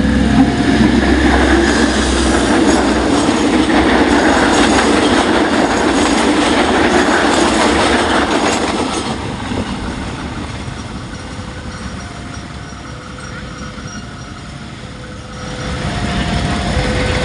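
Train passing at speed, its wheels and carriages loud for about nine seconds before fading away. A level crossing's two-tone electronic warning alarm alternates between a higher and a lower note, heard again clearly once the train has gone.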